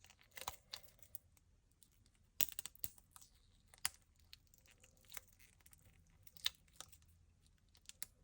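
Faint, scattered clicks and crackles of a silicone mold being flexed and peeled back to free a cured resin drawer knob that is sticking in it.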